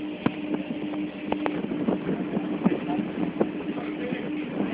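Steady engine hum of a ship underway, with scattered clicks and knocks over it.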